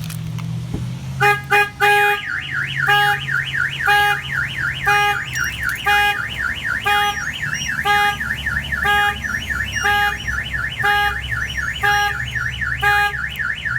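Aftermarket AutoShield car alarm siren on a Chevy Silverado 2500HD, set off by a door being opened while armed. A fast warbling siren sweeps up and down about four times a second, with a short horn-like blast about once a second. The sounding starts about a second in with three quick blasts.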